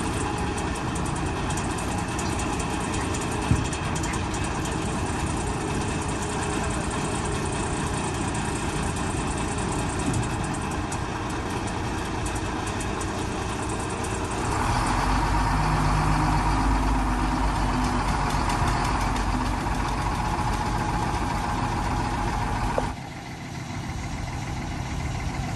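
Heavy engine idling steadily, then running louder and deeper for about eight seconds from a little past halfway, before the sound drops away abruptly near the end.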